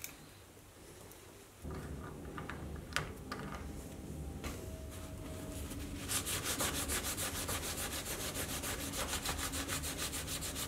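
A cloth wiping metal chips and cutting fluid off a freshly tapped aluminium block in rapid back-and-forth strokes, starting about six seconds in. Before it, a low steady background noise and a couple of light clicks.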